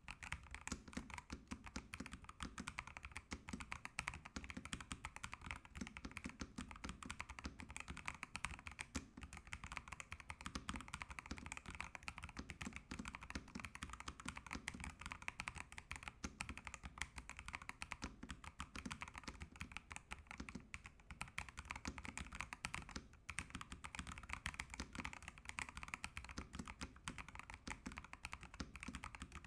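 Fast, continuous typing on a Fantech MaxFit81 mechanical keyboard fitted with PBT keycaps, a dense stream of key clicks and clacks starting sharply at the opening: a typing sound test of the keyboard.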